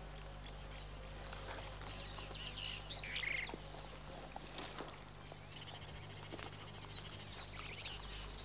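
Grassland ambience: a steady high insect buzz with scattered short bird chirps. Near the end an insect's rapidly pulsing trill swells louder.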